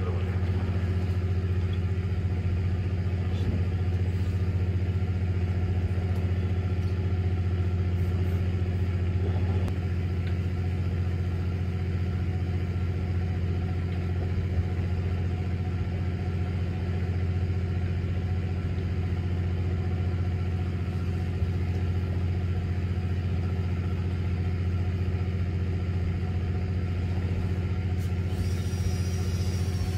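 Fishing boat's engine running steadily at sea: a low, even drone that does not change.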